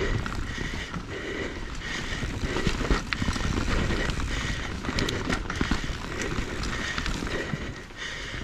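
Mountain bike riding over a rough, rocky trail: tyre noise and bike rattle with many sharp knocks as the wheels hit rocks.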